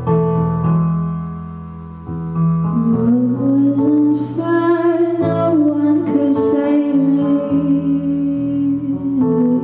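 Piano chords played alone at first, then a woman's voice comes in about two seconds in, singing long, held, gliding notes over the chords.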